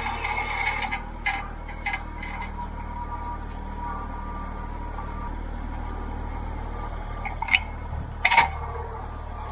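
Kubota L3901 tractor's three-cylinder diesel engine running at a steady low hum while it carries a log in its grapple. Two sharp knocks come near the end.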